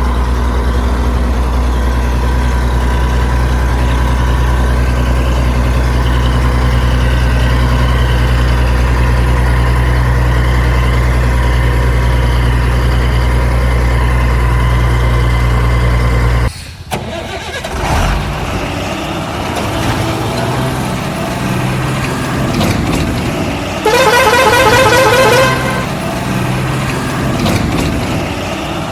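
Heavy vehicle engine running at a steady low idle. About 16 seconds in it cuts off suddenly and a rougher, busier engine sound takes over, with a horn blast lasting about a second and a half near the end.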